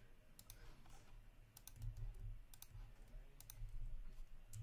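A few sharp, scattered clicks from working a computer's mouse and keyboard, faint, over a low background rumble.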